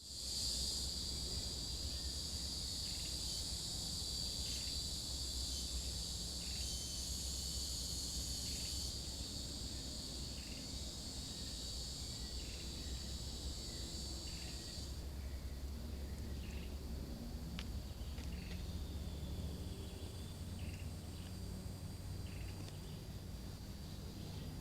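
High-pitched insect chorus, dense and steady, that thins out abruptly about fifteen seconds in, leaving a fainter buzz with short chirps over a low rumble.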